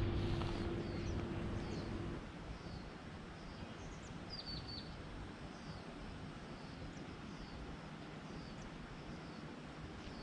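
Small birds chirping, with short downward-sliding calls repeating every second or so and a quick cluster of several calls about four seconds in, over a steady outdoor hiss. A low steady hum is louder at the start and cuts off about two seconds in.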